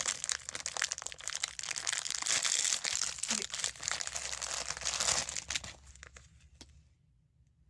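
Plastic packaging of a Labubu blind box crinkling and tearing as it is opened by hand, dying away about five and a half seconds in.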